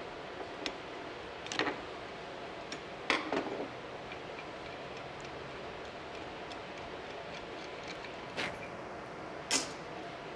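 Scattered light clicks and clinks of small metal carburetor parts and hand tools being handled and set down during disassembly, about half a dozen at irregular intervals over a steady background hum.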